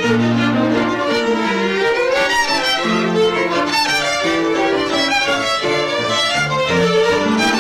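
A large group of violins playing a classical piece together, bowing sustained notes that change every half second or so.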